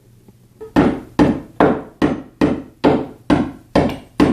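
A hammer striking nails in wood, starting just under a second in and going on in a steady rhythm of about two blows a second, nine blows in all, to drive the nails down.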